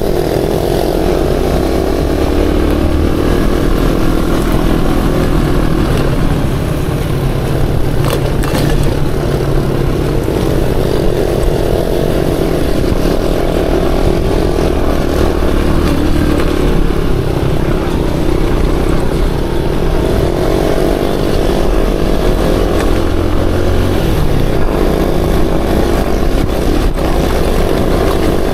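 Aveta Ranger Max Explorer motorcycle engine running while being ridden, its pitch rising and falling slowly as the throttle is opened and eased.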